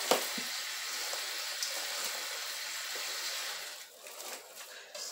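Hands squishing and kneading a raw ground beef and egg meat loaf mixture in a stainless steel bowl, with one sharp knock just after the start. A steady hiss runs under it and cuts off about four seconds in, leaving the soft, irregular squelches of the meat.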